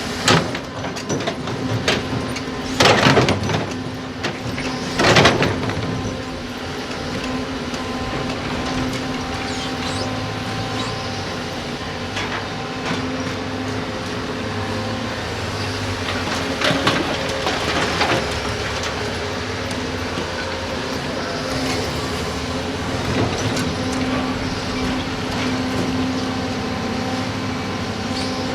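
Diesel engine of a working excavator running steadily, with several loud clattering hits as it digs and loads sand and rock, the heaviest about three and five seconds in.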